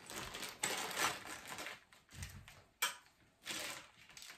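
Plastic packaging rustling and crinkling as small trolley parts are handled, with scattered clicks and one sharp click nearly three seconds in.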